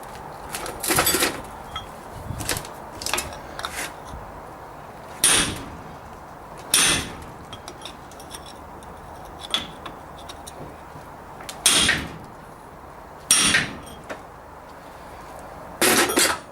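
A hammer striking a blunt chisel used as a punch against the back of a Triumph Herald rear hub's taper. There are six sharp metallic blows a few seconds apart, each with a short ring, and lighter knocks between them. The hub is under load from a hydraulic puller, and the blows are meant to shock it free.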